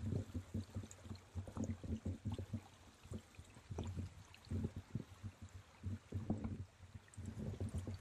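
Shallow, rocky river trickling, with irregular low thumps and rumble on the microphone throughout.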